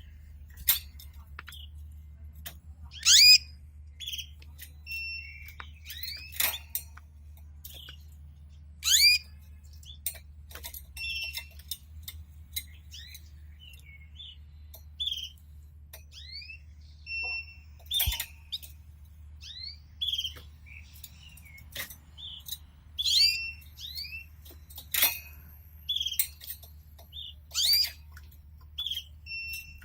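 Canaries chirping and calling in short separate notes, brief rising chirps and short whistled tones every second or so, rather than a continuous song. A steady low hum runs underneath.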